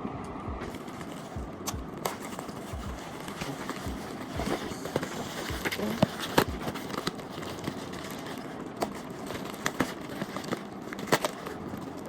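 Packaging of a tripod being handled and opened: irregular clicks, knocks and rustling of box and wrapping, a few sharper knocks about halfway and near the end.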